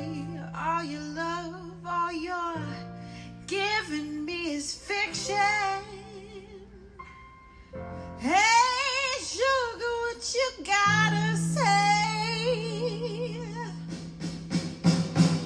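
Song with a woman singing over sustained bass notes; the vocal line swells louder about halfway through after a brief quieter stretch.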